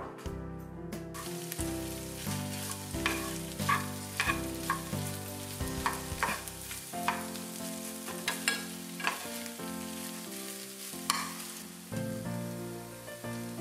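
Sliced mushrooms sizzling in a small frying pan while a metal spoon stirs them, clinking and scraping against the pan about ten times.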